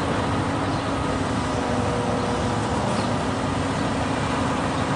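Kato 20-ton mobile crane's diesel engine running steadily under load, driving the hydraulics while a vehicle hangs from the hoist, with a steady low hum over the engine noise.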